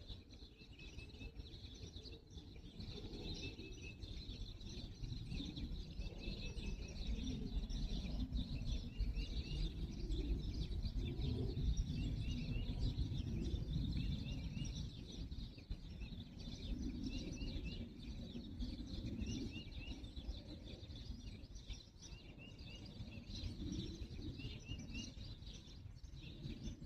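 Small birds chirping in the background, short bright chirps repeated every second or two. A steady low rumble runs underneath, growing louder through the middle and easing off toward the end.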